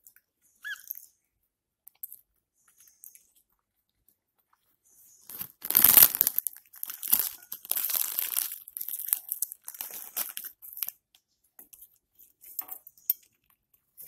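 Loud crinkling and crunching of plastic close to the microphone for about six seconds, starting about five seconds in and fading into scattered clicks.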